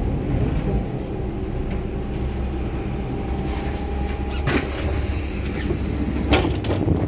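City bus interior: steady low engine rumble as the bus draws up to a stop. About four seconds in, a hiss of air ends in a knock as the pneumatic doors open, followed by more knocks and clatter near the end.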